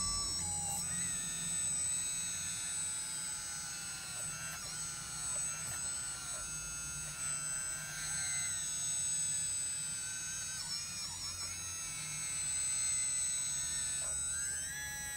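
Electric hydraulic pump of a Huina 580 RC excavator whining steadily as the boom presses the bucket down under load, its pitch shifting and dipping briefly a few times in the second half.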